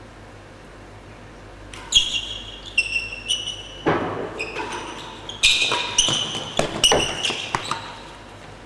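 Real tennis rally: sharp knocks of the hard ball off rackets and the court walls, a dozen or so starting about two seconds in and running in quick succession, several followed by short high-pitched ringing tones.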